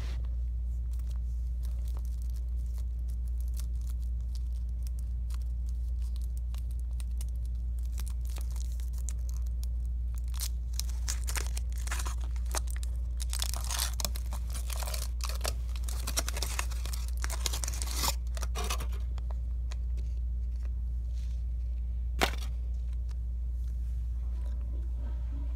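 A wrapper being crinkled and torn open in bursts, from about ten seconds in until nearly twenty, over a steady low hum. A single sharp click comes near the end.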